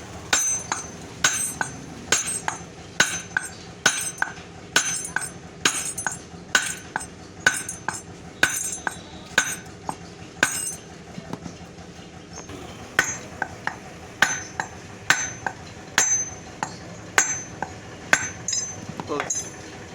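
Repeated hammer blows, about two a second with a short ring after each, driving a new shaft into a table fan motor's rotor as it goes in tight. The tapping pauses for about two seconds midway, then resumes.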